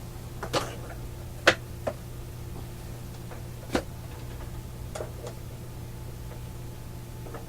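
Sharp, irregular clicks and crackles, about seven, as a 0.05 µF test capacitor is clipped into the receiver's audio circuit, over a steady low hum.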